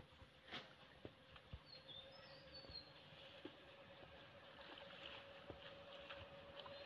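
Near silence: faint outdoor ambience with a faint steady hum and a few short, high bird chirps.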